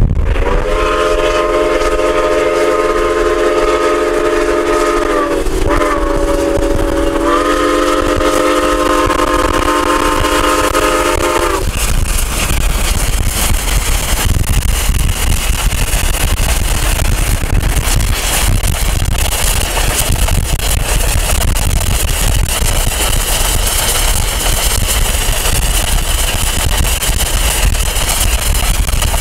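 Chime steam whistle of Iowa Interstate 6988, a Chinese-built QJ 2-10-2 steam locomotive, blown as a chord of several notes for two long blasts, its pitch sagging between them. After about eleven seconds it stops, leaving a steady rush of road and wind noise from the car pacing the train.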